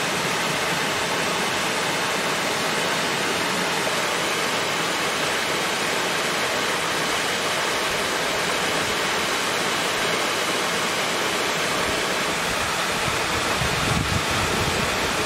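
A small waterfall pouring over a rock ledge into a pool: a steady rushing and splashing of falling water, with some low wind rumble on the microphone near the end.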